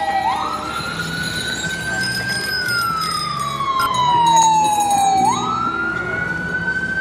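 Police car siren in a slow wail: the pitch jumps up quickly, holds high, then slides slowly down over about three seconds, going round twice.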